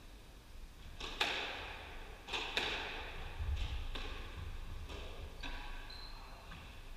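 Squash rally: the ball cracks off rackets and the court walls roughly once a second, the loudest hits about a second and two and a half seconds in, with dull thuds of players' feet on the court floor.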